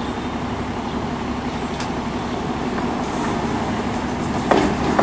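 Open-bench heritage trolley car running slowly along its track: a steady low rumble with a steady hum, and a single sharp clunk about four and a half seconds in.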